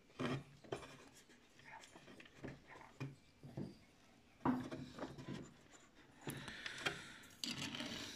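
Hands handling small plastic parts of an RC tank's road wheels and running gear: scattered light clicks and knocks, one louder knock about halfway through, and a rustle near the end.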